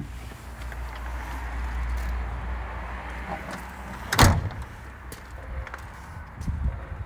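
Scania R143 truck cab door slammed shut once, a sharp bang about four seconds in, after a few seconds of low rumbling noise.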